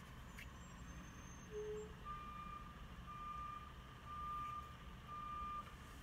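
A vehicle's reversing alarm beeping, one high steady beep about every second, starting about two seconds in, over a low steady hum.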